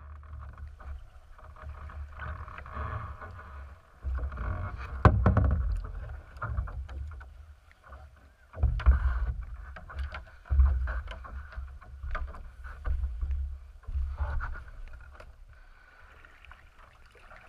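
Water lapping and sloshing against a kayak's hull, heard through a camera mounted on its deck, with a low rumble and several sharp knocks and bumps as the boat is moved about.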